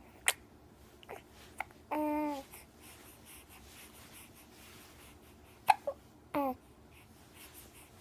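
A baby hiccupping: a few sharp, short hics spaced irregularly, with two brief high vocal squeaks that fall in pitch, one about two seconds in and one past the six-second mark.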